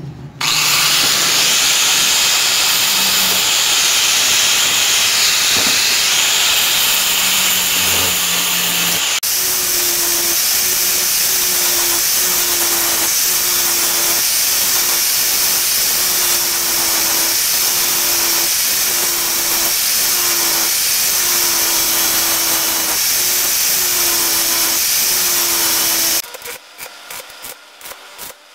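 Angle grinder grinding a steel angle bar: a loud, steady, hissing noise, and from about nine seconds in a tone runs through it that breaks off briefly about once a second. Near the end the grinder stops and the irregular crackle of stick (arc) welding takes over.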